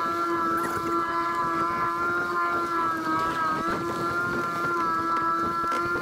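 Boat motor running at a steady speed: a constant whine of several fixed tones with a slight waver about three seconds in, over the rush of water and wind.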